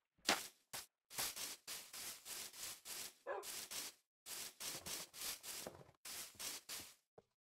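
A dog barking in a rapid run of short, sharp barks, with a brief pause about four seconds in.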